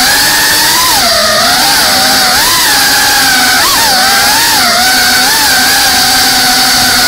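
GEPRC CineLog35 cinewhoop FPV drone's motors and propellers whining loudly, the pitch rising and falling as the throttle changes during the flight, with a quick sharp swing up and down about three and a half seconds in.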